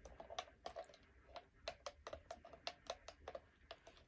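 Faint, rapid, irregular clicking of the buttons on a La Crosse W85947 weather radio being pressed one after another, several clicks a second.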